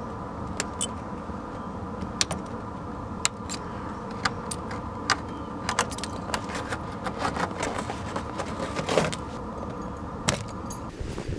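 Icicles snapping and clinking as a boot kicks them off the edge of a vehicle's wheel well, many small sharp cracks at irregular times, over a steady background hum.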